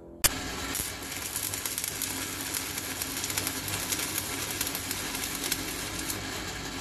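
Electric arc welding on the steel front end of a car: the arc's steady, crackling sizzle, full of fine irregular pops, starting abruptly just after the beginning.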